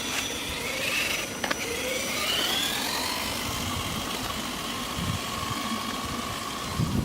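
Electric motor and gearbox of a radio-controlled Axial 4x4 jeep whining as it drives off-road: the pitch rises over a couple of seconds, then holds steady, with a few clicks and knocks from the ground.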